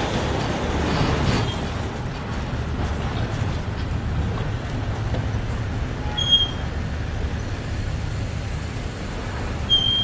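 Steady low rumble of vehicle or road traffic, with two short high chirps, one about six seconds in and one near the end.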